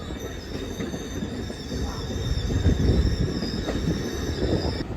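Passenger train's steel wheels squealing on the rails, several steady high tones held over the low rumble of the moving cars, the squeal stopping just before the end.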